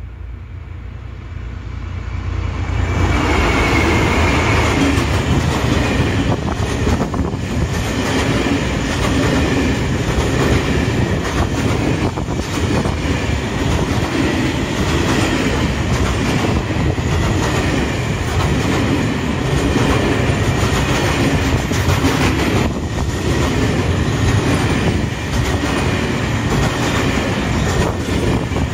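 Freight train hauled by two Dv12 diesel-hydraulic locomotives, approaching and growing louder over the first three seconds. A long line of loaded log wagons then rolls past close by, with a steady wheel rumble and clickety-clack over the rail joints.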